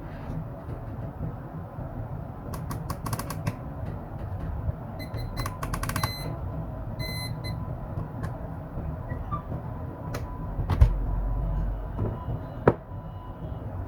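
Quick clicks and taps of hands working on a laptop, with a few short high electronic beeps around the middle and a low hum and two louder knocks near the end.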